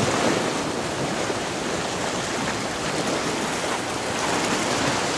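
Sea surf washing and breaking against a rocky shoreline in a steady, continuous wash.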